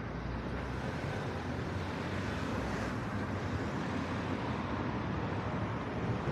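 City street traffic: a steady wash of car noise.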